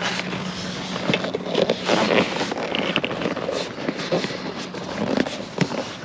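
Irregular scraping, rustling and clicking of a screwdriver and hands working at a motorcycle's leather passenger backrest and seat. A steady low hum runs underneath and stops about two seconds in.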